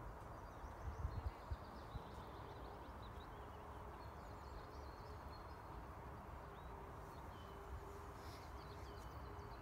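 Open-air field ambience: a steady low rumble with a few soft thumps about a second in, scattered small bird chirps, and a faint steady hum from about two and a half seconds in.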